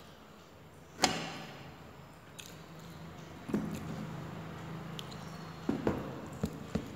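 Close-up eating sounds of a person eating rice and saag by hand: chewing with short wet mouth clicks and smacks, and one sharp click about a second in, louder than the rest.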